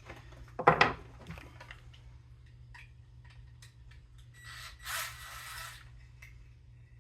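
Screws being worked out of a refrigerator water dispenser's cover plates. A sharp knock of the tool being set against the plate comes a little under a second in, then small clicks, and a rasping scrape of about a second as a screw turns out, near five seconds in.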